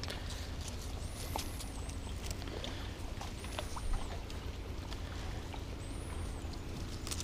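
Leafy branches and twigs rustling and crackling as they are grabbed and pulled by hand, with scattered small clicks over a steady low hum. A high, thin whistle rises and falls three times: about a second in, in the middle, and about six seconds in.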